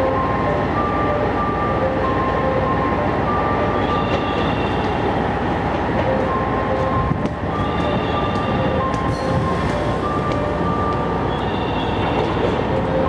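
JR West KiHa 121 diesel railcar running in slowly: steady engine and wheel rumble on the rails. Over it, a short electronic tune of stepped notes repeats every few seconds.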